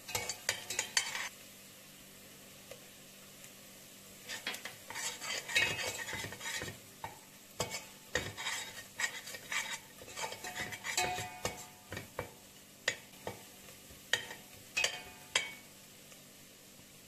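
Metal spoon stirring and scraping diced onion and carrot frying in oil in a stainless steel pot, with sharp clicks of the spoon against the pot and a quiet sizzle underneath as flour is toasted in. The stirring stops for about three seconds near the start, then goes on in quick strokes.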